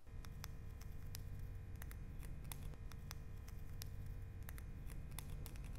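Faint low hum with a thin steady held tone, sprinkled with irregular light clicks like crackle.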